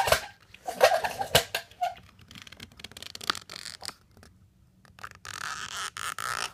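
Blade cutting vinyl wrap film along the edge of a car door handle: a run of short clicks and scratchy scraping, with a longer steady scratching stretch about five seconds in.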